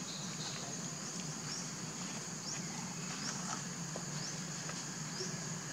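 Steady high-pitched drone of insects, with short rising chirps repeating about once a second, over a low steady hum and a few faint rustles.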